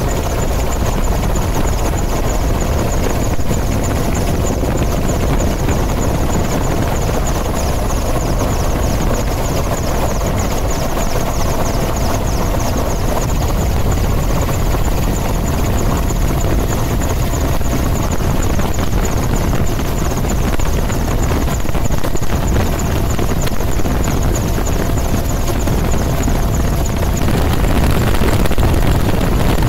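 Helicopter in flight heard from aboard: the rotor and engine run steadily, with a fast, even rotor chop.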